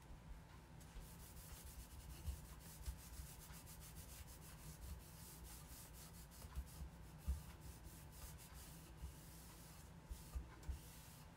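Faint rubbing of a lint-free cloth over a painted wooden cutout, spreading and wiping off furniture wax in irregular strokes, with a few soft bumps against the work surface.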